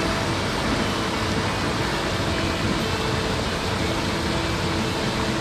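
Steady rush of a rocky mountain stream's flowing water.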